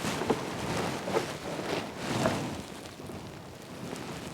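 Handling noise as a rubber washer-fluid hose is pushed onto plastic windshield washer sprayer nozzles: a soft steady rustle with a few faint clicks in the first half.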